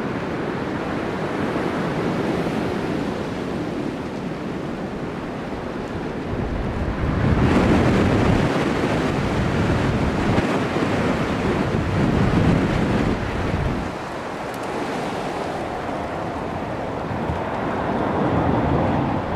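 Gusting gale-force wind buffeting the microphone: an even rushing noise that swells into a stronger gust about seven seconds in and eases off about fourteen seconds in.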